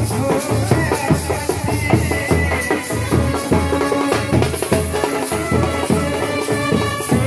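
Loud band music: drums and rattling percussion over a pulsing bass beat, with melody lines running on top.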